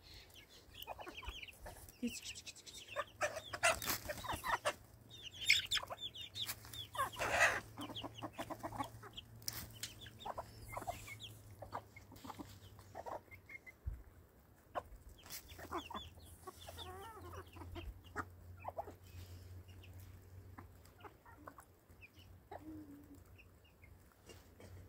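Chickens clucking in short, repeated calls, loudest in the first half, with a few short knocks.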